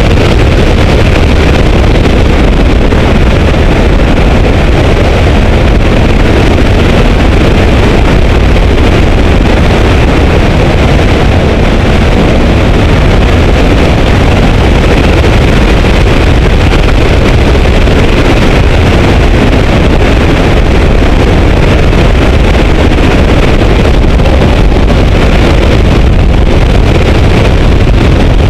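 Loud, steady wind rush on a camera mounted on the outside of a Porsche 944 lapping a race track at speed, with the car's four-cylinder engine running under load beneath it.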